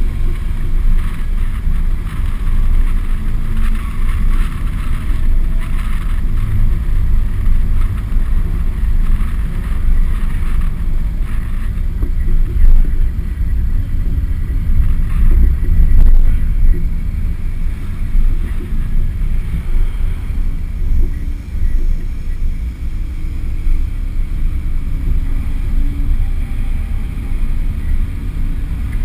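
Car driving slowly at low engine speed, heard from a camera mounted on the outside of the car, with a heavy, steady wind rumble on the microphone.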